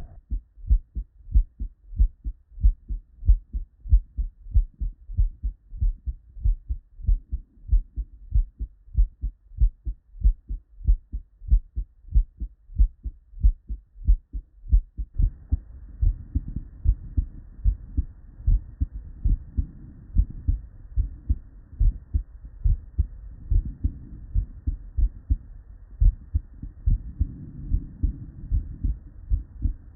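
Normal human heart sounds heard by auscultation: a steady, regular rhythm of paired low thumps, S1 and S2, the "lub-dub". About halfway through, a faint hiss comes in under the beats as a different patient's recording takes over.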